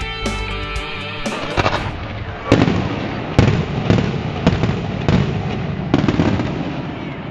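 Guitar music ends in the first second or two. Then aerial fireworks go off: about six sharp bangs, roughly one every half second to second, each followed by crackling and a rumbling echo.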